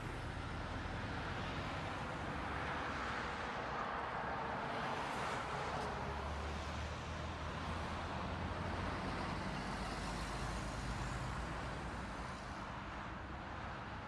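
Steady street traffic noise with a continuous low engine rumble, heard from inside a car standing in traffic.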